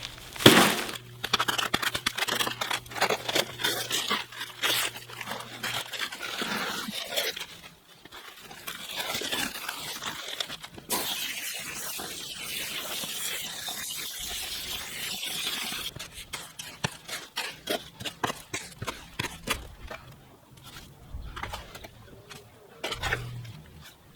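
Wet ready-mix concrete being scraped and tipped into a slab form, with repeated scrapes and knocks, the loudest about half a second in.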